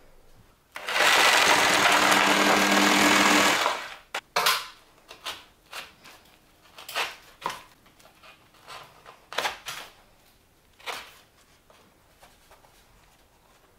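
A power tool runs steadily for about three seconds, cutting a hole into the plaster coving in the top corner of a room. It is followed by a series of short scrapes and knocks as a hand tool clears and squares up the hole.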